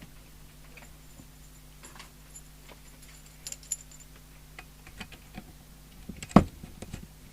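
Small clicks and metallic clinks of parts and tools being handled on a workbench, with one louder knock about six seconds in, over a faint steady low hum.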